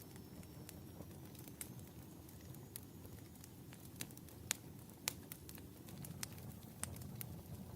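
Wood fire burning in a fireplace: a steady low rumble of flames with irregular sharp crackles and pops, two louder pops about four and a half and five seconds in.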